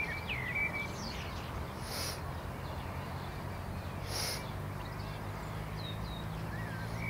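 Wild birds chirping faintly in short calls over a steady low hum, with two brief high hissy sounds about two and four seconds in.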